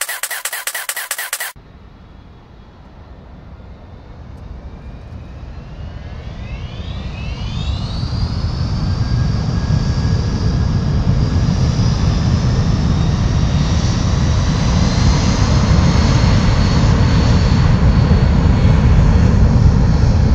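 Aircraft engines spooling up: a low rumble that builds steadily louder, with a whine that rises in pitch and then holds steady, as in a jet aircraft's takeoff run.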